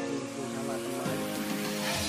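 Background music of sustained chords, changing to a new chord about a second in.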